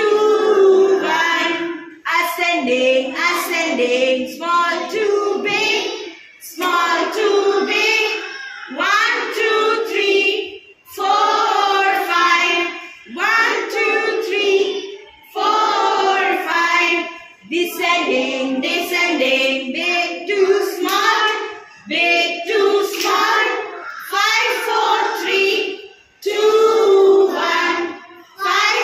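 A group of young children singing an action rhyme together, in short phrases of a second or two with brief breaks between them.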